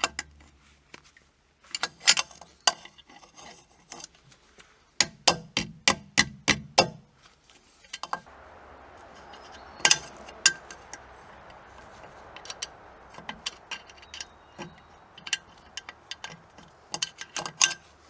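Metal hand tools clicking and tapping on an outboard motor's propeller hardware as the cotter pin and prop nut are worked loose, with a quick run of sharp taps a few seconds in. A faint steady hiss runs under the second half.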